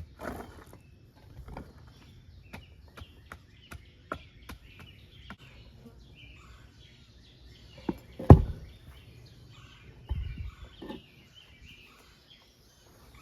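Scattered clicks and knocks of work, with one loud thump about eight seconds in, over faint bird chirps.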